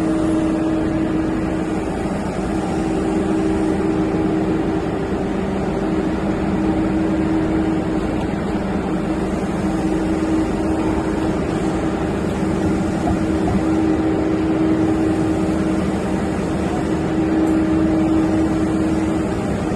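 Steady machinery drone with a constant hum running under an even noise.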